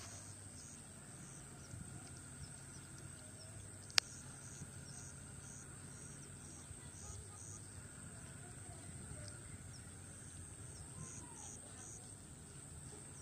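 Faint outdoor ambience at a village pond: distant bird calls and insects, with short high chirps repeating over a steady high hiss, and a single sharp click about four seconds in.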